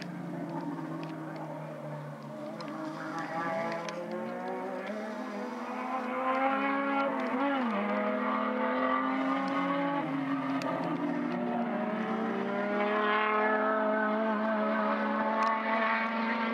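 Several racing car engines at full throttle, their notes rising and dipping in pitch as the cars accelerate and change gear. The sound grows louder about six seconds in as the cars come closer.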